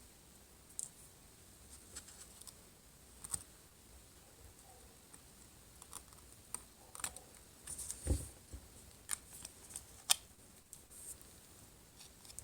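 Faint, scattered small clicks and scrapes of a plastic card and craft knife prying cracked glass off a smartphone screen, with a duller knock about eight seconds in.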